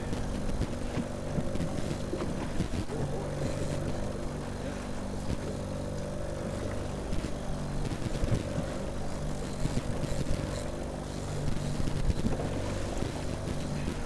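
Fishing boat's outboard motor running steadily at trolling speed, a constant droning hum, under wind and water noise.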